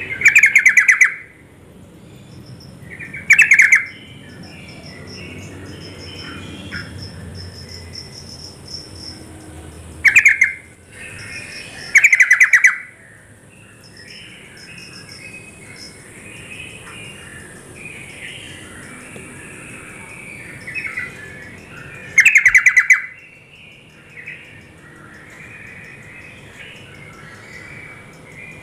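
Yellow-vented bulbul (trucuk) song: five short, very loud bursts of rapid bubbling notes, with softer chattering calls between them. A steady high hiss runs underneath and fades out about two-thirds of the way through.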